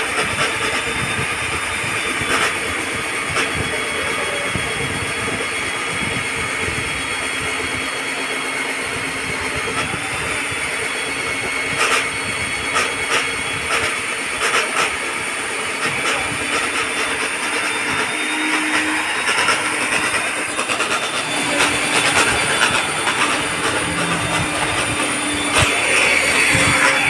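Electric diamond core drill on a stand, boring an AC pipe hole through a building's outer wall. It runs with a steady, high grinding whine and scattered short knocks, a little louder near the end.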